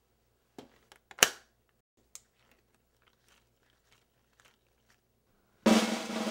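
A few scattered small clicks and knocks, the sharpest about a second in, then a snare drum roll that starts abruptly near the end.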